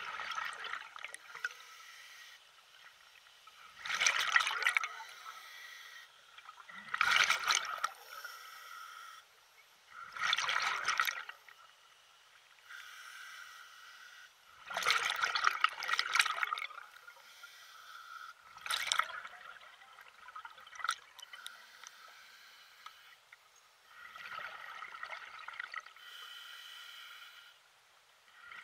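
Water splashing or lapping in separate surges every few seconds, each lasting about a second.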